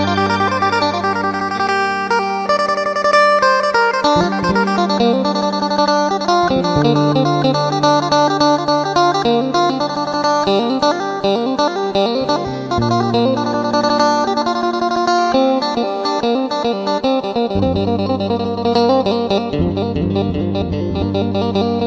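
Intro music led by plucked guitar, quick-moving notes over a sustained bass line.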